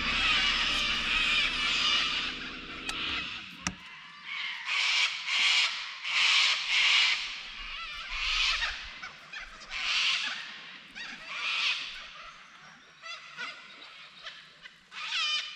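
Laughing kookaburras calling in a raucous chorus, in loud bursts every second or two. Under the first three and a half seconds a boat's electric trolling motor hums, then stops.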